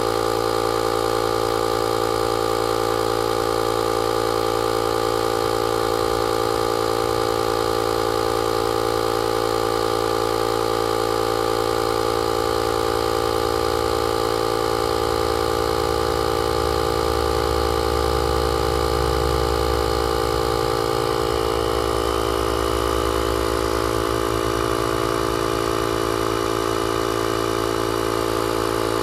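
Built-in air compressor of a JFEGWO 6000A portable jump starter running steadily as it pumps up a car tyre, a constant mechanical hum.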